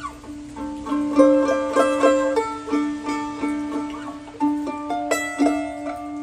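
A mandolin played solo with a pick: a melody of quickly picked notes that ring and fade, over a low note struck again and again beneath it.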